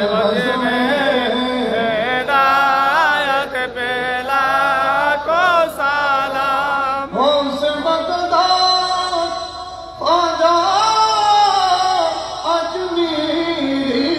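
Men chanting a devotional Qiyam salutation to the Prophet through stage microphones, sung in long ornamented phrases with a strong waver in the voice. New phrases begin about halfway through and again near the end.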